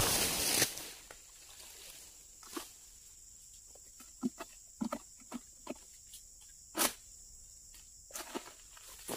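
Scattered short knocks and taps as a long pole sickle (egrek) is raised up an oil palm trunk and worked among the fronds, with a louder knock about seven seconds in. A loud burst of rustling noise fills the first second. A steady high insect drone runs underneath.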